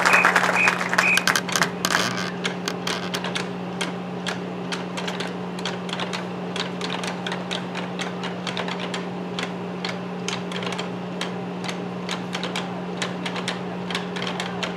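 Dense clicking in the first two seconds thins to scattered, irregular sharp clicks and taps, over a steady low hum.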